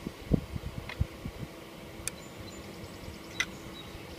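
Handling sounds from a screwdriver and hands at a pyranometer's ventilator mount: a run of low thumps in the first second and a half, then a few sharp clicks of metal. A faint steady hum lies underneath.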